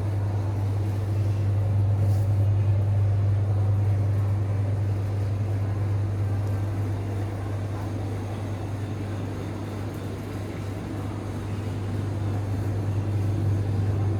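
A steady, loud low mechanical hum with an even rumbling noise beneath it.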